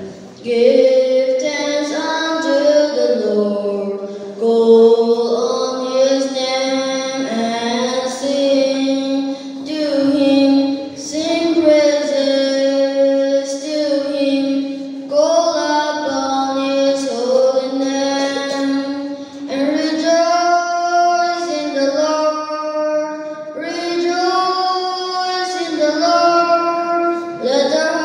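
A boy singing a solo, phrase after phrase of held notes with short breaths between them.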